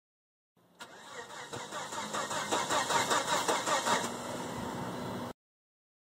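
A turbocharged car's starter clicks in and cranks the engine with a fast, even rhythm, showing a cranking condition rather than a no-crank. About four seconds in, the engine catches and runs steadily.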